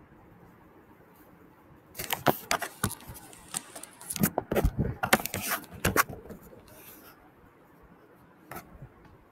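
A quick flurry of sharp clicks, knocks and rattles, like small objects being handled, lasting about four seconds, then one more click near the end.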